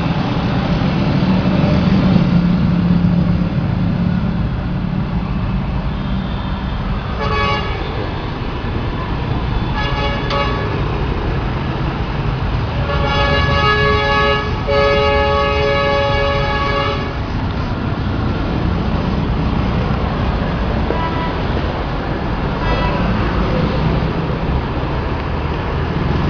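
A horn sounds in short toots about seven and ten seconds in, then sounds for about four seconds from around thirteen seconds. Under it runs a steady low rumble.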